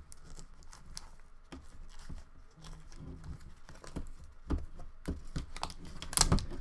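Plastic slime tub handled and its snap-on lid pried off, giving a run of small clicks and crinkling plastic, with a louder crackle near the end.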